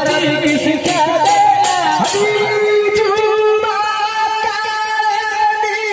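Hindu devotional kirtan (Harinam chanting) singing with brass hand cymbals (kartal) clashing in a steady beat, about two to three strikes a second. The strikes thin out about two seconds in, and the melody then holds long, steady notes.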